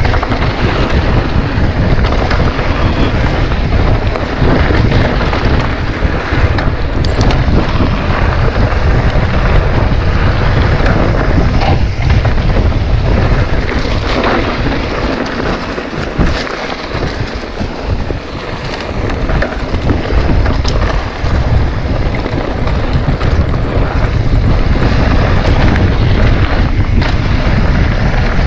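Mountain bike ridden fast down a dirt singletrack: a steady rush of wind buffeting the handlebar-mounted camera's microphone over the rumble of the tyres on the trail. It is broken by a few sharp knocks as the bike hits bumps, and eases for a couple of seconds just past the middle.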